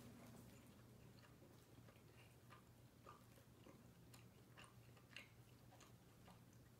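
Faint chewing of a piece of salami with the mouth closed: soft, irregular clicks.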